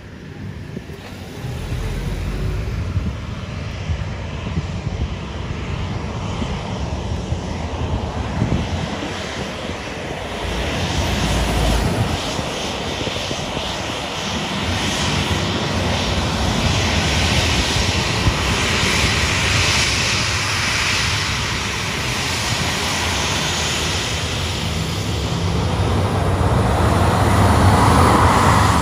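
Boeing 737 twin jet engines at low taxi power as the airliner rolls past close by on the runway: a steady rumble and hiss that grows louder, with a whine building near the end as the engines draw level.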